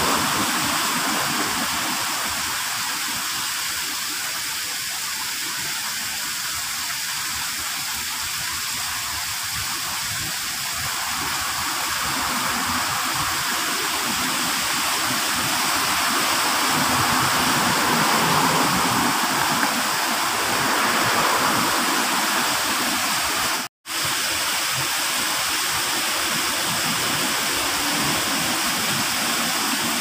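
Small garden rock waterfall, water splashing steadily down the stones into a shallow pond as an even hiss. The sound cuts out completely for a split second about three-quarters of the way through.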